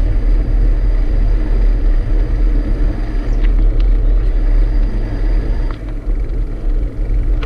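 Steady low rumble of wind buffeting the microphone and bicycle tyres rolling on an asphalt trail while riding.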